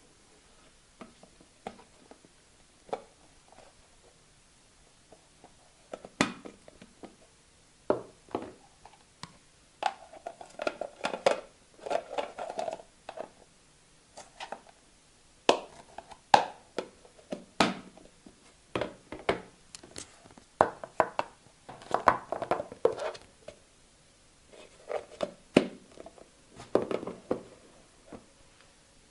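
Hard plastic storage boxes being handled on a tabletop: lids fitted on and pulled off, and boxes knocked together and set down. The result is an irregular string of sharp clicks and knocks, sparse at first and busier after about six seconds, with some short rattly clusters.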